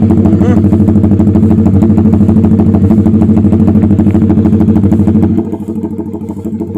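Motorcycle engine idling through a VMAX B38 aftermarket exhaust shortly after starting, a steady loud pulsing note. It drops noticeably in loudness about five seconds in.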